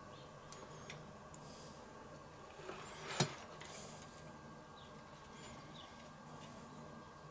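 Faint handling sounds of food being threaded onto a thin flexible grill skewer over a wooden cutting board: scattered soft clicks and taps, with one sharper click about three seconds in, over a steady low hum.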